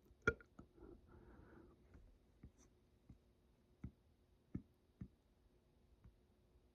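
Near silence with a few faint, scattered clicks, the loudest just after the start, and a soft hiss for about a second starting about a second in.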